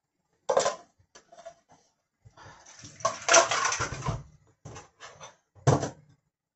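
Kitchen dishes and utensils being handled and set down: a sharp clatter, a longer scraping rattle about midway, and a few more knocks near the end.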